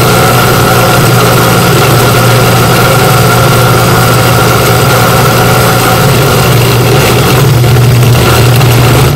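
An old countertop blender running steadily on its ice-crush setting, chopping sofrito vegetables (peppers, onion, cilantro, garlic) into small chunks. The loud, even motor hum cuts off suddenly at the very end.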